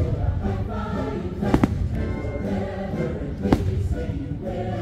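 Fireworks show soundtrack of choral music, a choir singing over instrumental backing, with sharp firework bangs cutting through: two close together about a second and a half in, and another about three and a half seconds in.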